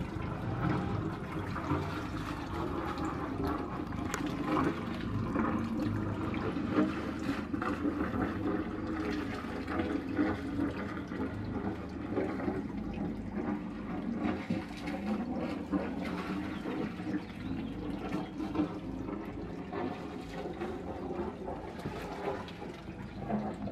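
Linssen 320 AC motor cruiser's inboard engine running at low speed, with water from its wet exhaust splashing at the stern and the propeller churning the water as it manoeuvres slowly.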